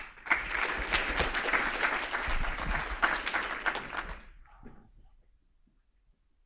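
Audience applauding, a dense patter of many hands clapping that lasts about four seconds and then dies away.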